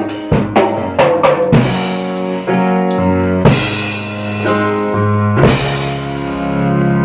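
Music with a drum kit: a quick run of drum hits in the first second and a half, then single crashes about three and a half and five and a half seconds in, over sustained held chords.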